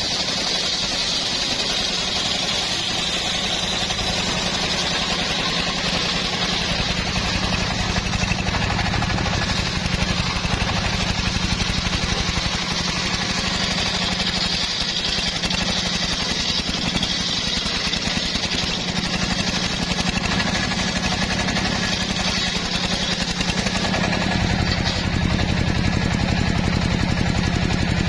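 Homemade engine-driven circular sawmill ripping a hardwood log lengthwise: the engine runs steadily under load beneath the high, steady hiss of the large blade cutting through the wood.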